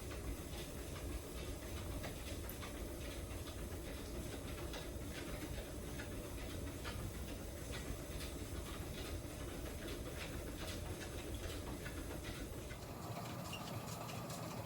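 Dog panting while walking on a running treadmill, over the treadmill's steady low hum and faint patter of paws on the belt. The treadmill's sound shifts near the end.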